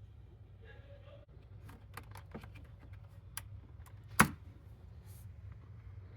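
A scatter of small clicks and taps from parts being handled by hand, with one sharp, much louder click about four seconds in, over a faint steady low hum.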